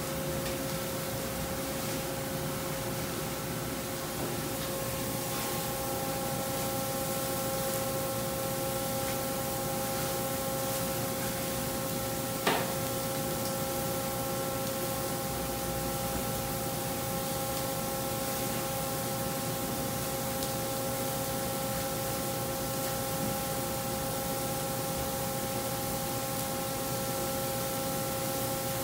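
Steady hiss of burger patties sizzling on a hot gas charbroiler, with a steady machine hum of several pitched tones behind it. A single short click sounds about twelve seconds in.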